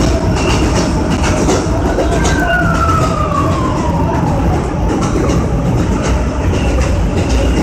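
New York City subway train running on elevated track, a loud steady rumble of wheels and car noise. About two seconds in, a high whine slides down in pitch for roughly two and a half seconds and fades.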